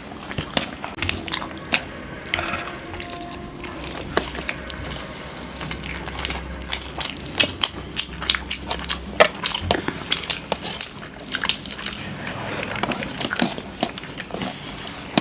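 Close-up eating sounds: people chewing and biting food, with many short, irregular wet clicks of the mouth.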